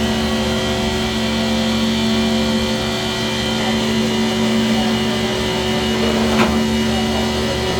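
Fadal VMC15 vertical machining center running a program, its spindle turning steadily at about 4,500 RPM with a level, many-toned machine whine. There is one short click about six seconds in.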